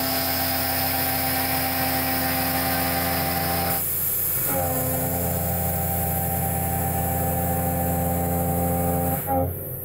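Tormach 1100MX CNC mill cutting a metal part with an end mill, running dry under an air blast: a steady singing tone with several overtones over a loud hiss. The cut breaks off a little before halfway and comes back about half a second later with a short rise in pitch.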